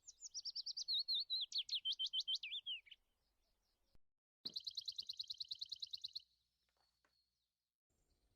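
A small songbird singing two phrases of rapid, repeated high chirps. The first is a quick run of notes sliding downward over about three seconds; the second, about four and a half seconds in, is a fast, even trill lasting under two seconds.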